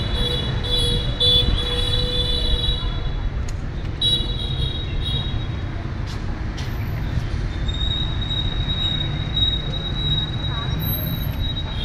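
Caged Chinese hwamei singing: high clear whistled phrases, then one long held whistle in the second half, over a steady low background rumble.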